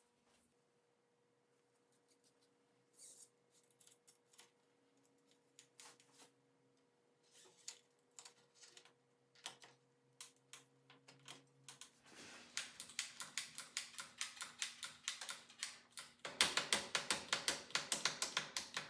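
Small metallic clicks from bicycle parts being worked by hand, scattered at first, then long fast runs of ticking from about twelve seconds in, loudest near the end.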